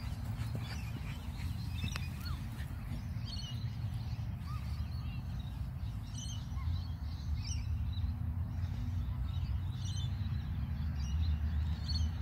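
Birds chirping and calling here and there over a steady low rumble, the loudest sound, that wavers like wind on the microphone.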